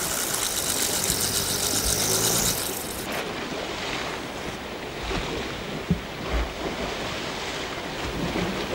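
Sea waves washing on the shore, with wind buffeting the microphone. A louder hissing rush fills about the first three seconds, and a few low wind thumps come near the middle.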